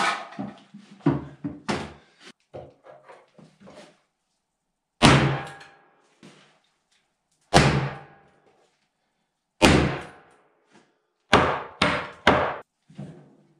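Six heavy hammer blows, the first four about two seconds apart and the last three in quick succession, each ringing briefly as it dies away. Lighter knocks and tool-handling clatter come before them.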